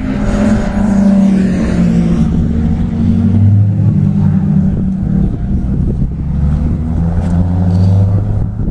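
Track-day cars' engines running at speed: a Seven-style open sports car approaches and passes close by, followed by more cars' engines, the pitch shifting as they go through the corner.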